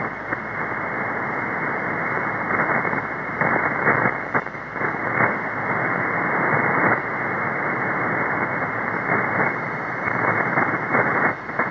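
Shortwave receiver tuned to 4625 kHz upper sideband, giving steady, narrow, telephone-like hiss with irregular crackles of static. No steady buzzing tone stands out of the noise.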